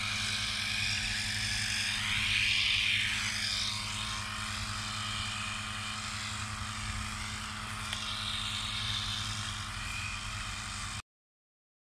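A small motor running steadily with a whirring whine that rises and falls about two to three seconds in, then cuts off abruptly near the end.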